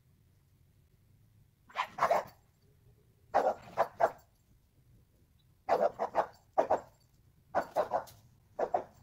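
A dog barking: short sharp barks in quick runs of two or three, starting about two seconds in and repeating through the rest of the stretch.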